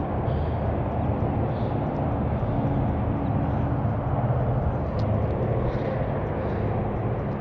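Steady low rumble of distant road traffic, with no single vehicle standing out.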